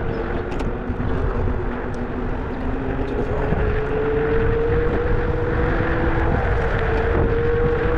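A vehicle in motion: a steady motor whine that drifts slightly in pitch and grows stronger after about three and a half seconds, over a heavy low road and wind rumble.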